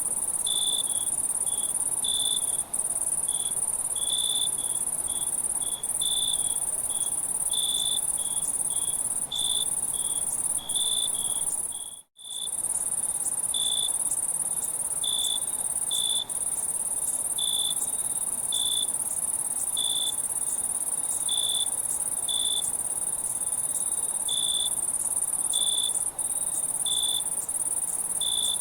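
Night ambience of crickets chirping: a steady high-pitched trill with a lower chirp repeating every half second to a second. The sound cuts out for a moment about twelve seconds in.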